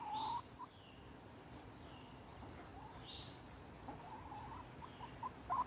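Faint bird calls: two short, arching high chirps, one near the start and one about three seconds in, with a few soft low clucks from the loose hen.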